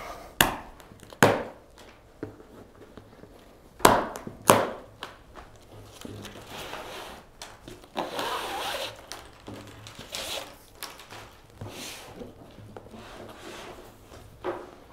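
White plastic packing strap being cut and pulled off a plastic shipping box, with four sharp snaps and knocks in the first five seconds. Rustling and scraping follow as the box is handled and tipped up on its end.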